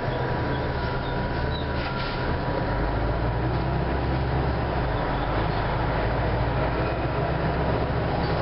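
Interior of a TTC Orion V diesel transit bus under way: the diesel engine and drivetrain run steadily under road noise, with a faint steady high whine. The deep engine note grows stronger about two and a half seconds in.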